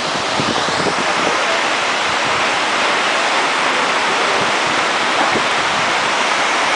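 Large waterfall pouring into its pool, a loud, steady rush of falling water.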